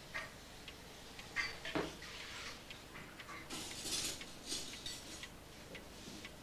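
A clock ticking steadily in a quiet room, with a few louder clattering, rustling sounds about one and a half and four seconds in.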